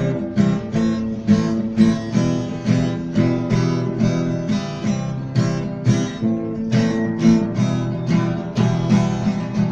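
Acoustic guitar strumming chords in a steady rhythm, about two strums a second, with no singing over it.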